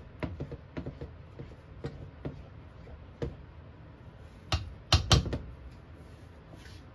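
A silicone spatula stirs sauce in a stainless-steel saucepan, making light scattered clicks and knocks against the pan. About two-thirds of the way in come three louder knocks in quick succession, after the spatula has been lifted out of the sauce.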